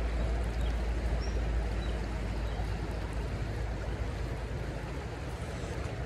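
Shallow creek water rushing steadily over a rocky riffle, with a low rumble that eases a little near the end.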